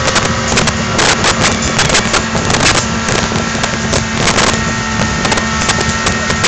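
Speedboat's 150 hp outboard motor running steadily at speed, mixed with heavy wind buffeting on the microphone and the rush of water in the wake.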